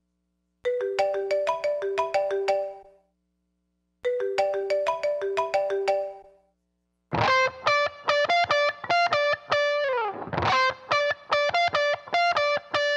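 Intro of a pop-sertanejo song: a short melody of quick plucked notes played twice with a pause after each, then the full band comes in with distorted electric guitar about seven seconds in.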